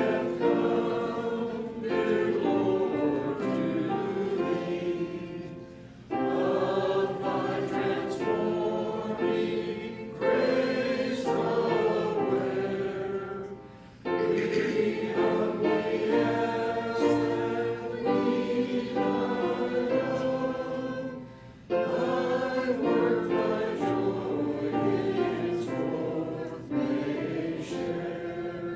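Congregation singing a hymn together, in long phrases with a brief pause between them about every eight seconds.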